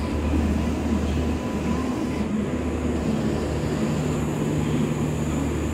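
An Indian Railways electric locomotive and its passenger coaches rolling slowly in along the platform, with a steady low rumble. A steady low hum joins about halfway through.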